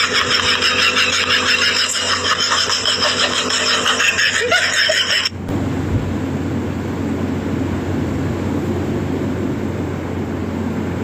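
A steady hissing, finely rattling noise, then a sudden change about five seconds in to a steady low rumble with a fine fast pulse: a cat purring close to the microphone.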